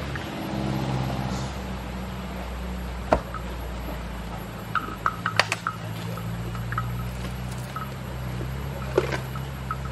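Asian elephants feeding on banana stems and cornstalks: sharp cracks and crunches as stalks are snapped and chewed, once about three seconds in, a cluster around five seconds and again near the end, over a steady low hum.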